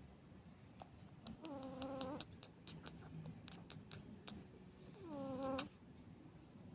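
Sleeping cat snoring: two pitched snores about three and a half seconds apart, each dropping in pitch and then holding, the second louder.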